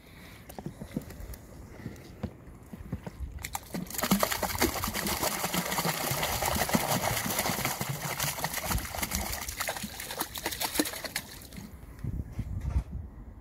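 A plastic crate of live carp being tipped into a lake from a boat: a mass of fish slithers out and splashes into the water, with wet flapping and small knocks. The splashing swells about four seconds in, runs for about seven seconds, then dies back.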